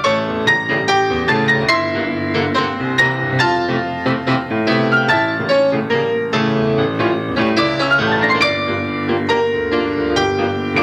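Piano music: a brisk passage of many quickly struck notes and chords, with a run rising in pitch about eight seconds in.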